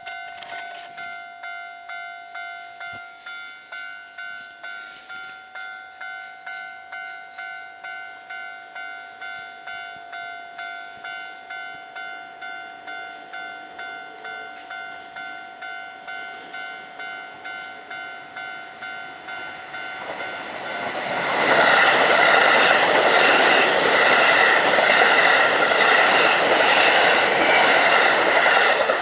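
Japanese level-crossing warning bell ringing about twice a second. About two-thirds of the way through, a train passes over the crossing, and its loud rumble and wheel clatter take over until near the end.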